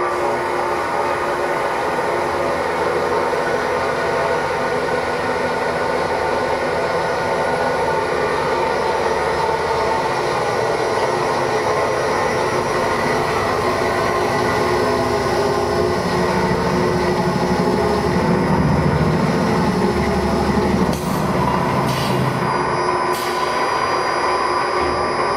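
JN-883 edge-band cutting machine running steadily, a motor hum with several steady tones, with a few sharp clicks a little before the end.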